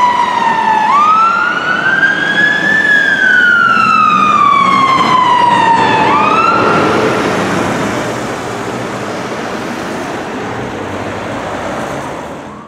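Fire engine siren on a slow wail, sweeping up and down in cycles of about four seconds; it stops partway through a rise about seven seconds in. Road and engine noise from the passing traffic continues and grows quieter.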